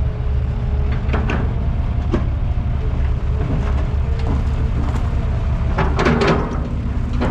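Excavator's diesel engine running steadily, with several metallic clanks and knocks over it, a cluster of them about six seconds in.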